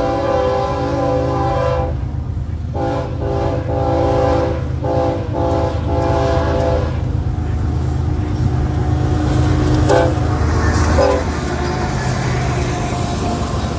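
Diesel freight locomotive sounding its multi-chime air horn: a long blast, then a string of short blasts that stops about seven seconds in. The locomotive's low engine rumble carries on throughout, with a few rail knocks near the end.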